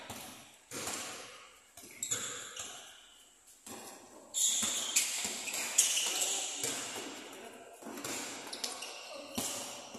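Basketball being dribbled and bounced on a wooden gym court during a game: a string of sharp, irregular bounces that echo through a large hall, with players' voices calling out.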